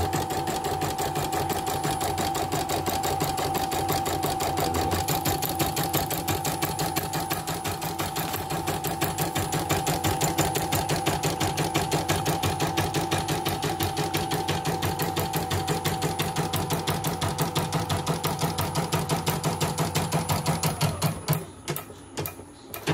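CNY E900 portable embroidery machine stitching a design, its needle bar clattering in a fast, even rhythm until it stops near the end. The machine runs smoothly with no trouble, its motor freshly replaced after it had been growling.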